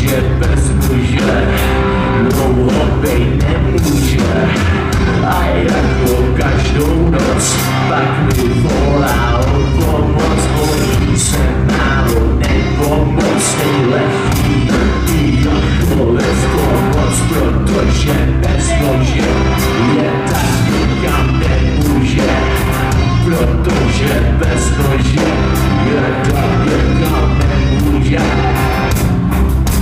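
Live rock band playing loud: electric guitars, bass and drum kit, with a male singer's vocals over the band.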